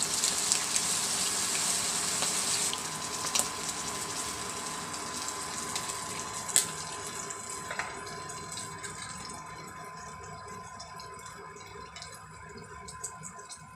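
Hot oil sizzling as flour-coated chicken feet fry in a wok, turned with metal tongs; a few seconds in the sizzle drops to a quieter, fading hiss as the fried feet sit in bubbling sauce. A few sharp clicks of the tongs against the wok, and a faint steady whine underneath.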